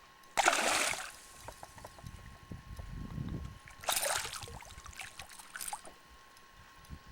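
Water splashing: a hooked smallmouth bass thrashing at the surface beside the boat, with a big splash about half a second in and another about four seconds in.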